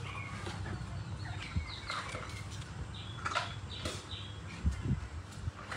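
Husky puppies giving short, faint, high squeaks and whimpers, several times over a few seconds, above a low steady rumble.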